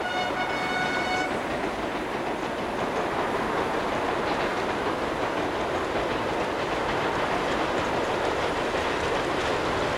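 Slate wagons of a narrow-gauge gravity train rolling downhill without a locomotive, held by hand brakes: a steady rumble and clatter of wheels on the track. A held tone sounds over it for about the first second.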